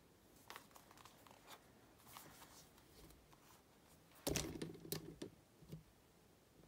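A hardcover photo book handled in the hands: faint rubbing and light taps of fingers on its cover, then a louder knock and rustle about four seconds in as the book is tipped onto its edge.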